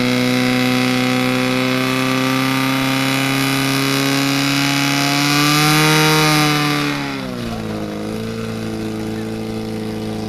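Fire pump engine running at high revs, driving water through the attack hoses. It rises slightly about six seconds in, then drops about seven seconds in to a lower, steady speed.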